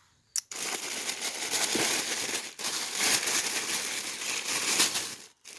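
Packaging crinkling and rustling as it is handled while digging into a subscription box: a dense run of crackly rustling that starts about half a second in and stops shortly before the end.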